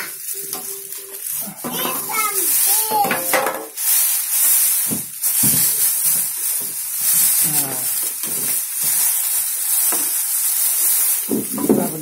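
A large clear plastic bag rustling and crinkling as it is pulled off a new top-loading washing machine.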